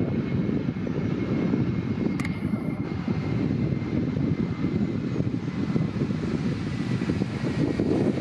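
Airbus A321neo jet airliner landing and rolling out on the runway: a steady low jet rumble from its turbofan engines, with a faint high whine over it.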